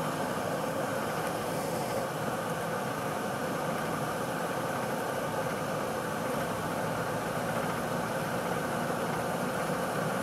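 Land Rover driving along a snowy road, heard from inside the cabin: a steady engine drone with road noise that does not change.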